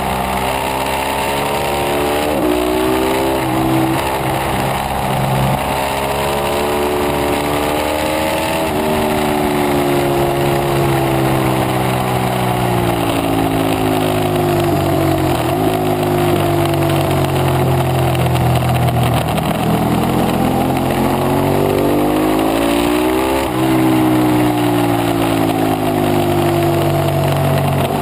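Ducati 848 Evo sport bike's V-twin engine under hard track riding, its pitch climbing and falling with the throttle and jumping at several gear changes, over steady wind rush.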